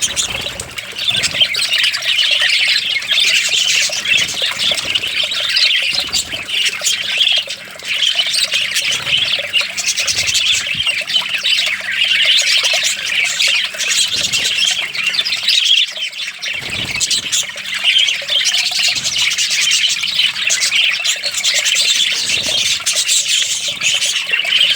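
Many small pet parrots calling and chattering without a break, a dense overlapping mix of high-pitched calls.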